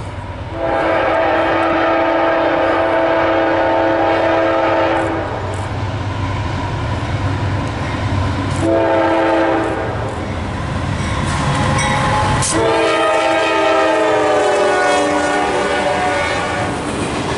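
Freight train locomotive's air horn blowing several notes at once: a long blast, a short one, then another long blast whose pitch wavers as the locomotive passes close by. All of it runs over the low rumble of the diesel engines.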